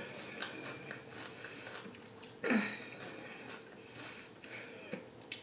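Quiet, close-miked chewing of sauced chicken wings: soft wet mouth clicks and smacks, with one short louder sound about two and a half seconds in.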